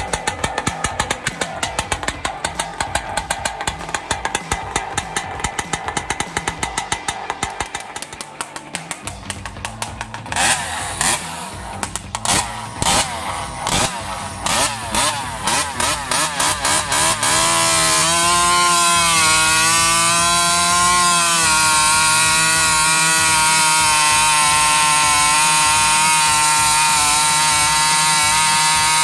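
Husqvarna 3120XP two-stroke chainsaw with an upgraded muffler idling, then revved in a string of short throttle blips. From about halfway through it is held steadily at high revs.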